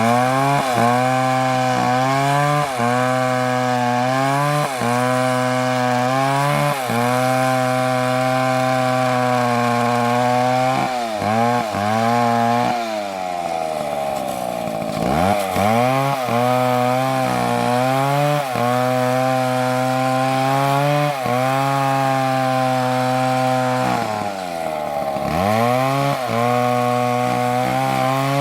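Two-stroke chainsaw cutting into wood at high revs, its engine pitch sagging briefly every second or two as the chain bites and recovering. About halfway through, and again near the end, the revs drop right down and then climb back up.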